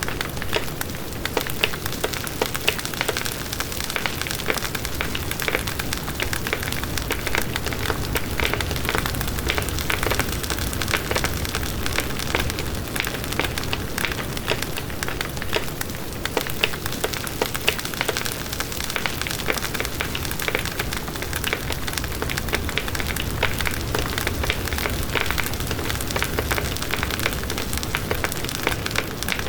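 A fire burning steadily, with dense crackling and popping over a low steady rush.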